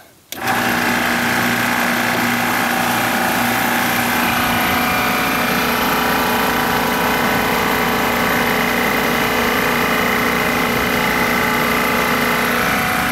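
Inficon Vortex Dual refrigerant recovery machine starts about half a second in and then runs steadily, its compressor pumping refrigerant out of an air-conditioning system into a recovery tank; a low hum in it drops out about four seconds in.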